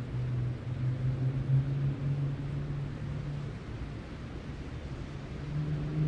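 A motor vehicle's engine hum, rising slowly in pitch as it accelerates, fading about three and a half seconds in; a second rising engine hum starts near the end.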